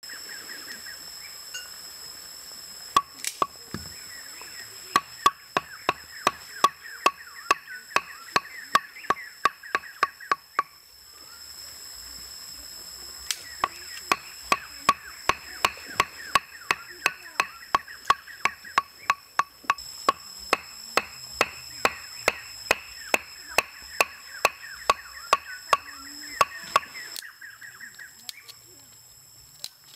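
Stakes being hammered into the ground with rapid, even blows from a hand tool, about two to three a second. The blows come in two long runs with a short pause between them.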